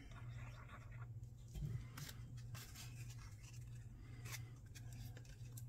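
Faint handling of paper cardstock: light rustles and small ticks as a freshly glued tab is pressed into place by hand, over a steady low hum.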